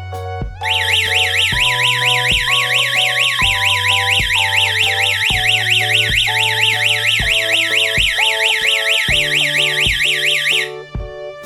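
Electronic warbling siren of a home security alarm system, sweeping rapidly up and down about four times a second over background music. It starts under a second in and cuts off abruptly about ten seconds later, matching the alarm's automatic ten-second shut-off.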